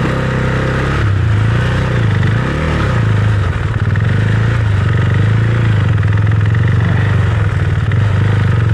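Husqvarna Svartpilen 401's single-cylinder four-stroke engine running under way. Its pitch dips and rises a few times in the first three seconds as the throttle is eased and opened, then holds steady.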